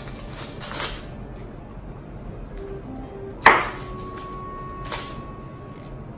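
Knife slicing down through a large block of sweet-potato yokan (imo-yokan) and striking the paper-lined counter beneath: three sharp cuts, the loudest about three and a half seconds in, over faint background music.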